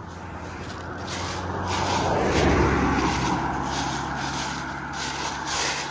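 A car passing on an asphalt road: tyre noise and engine hum swell to a peak about two and a half seconds in, then fade as it drives away.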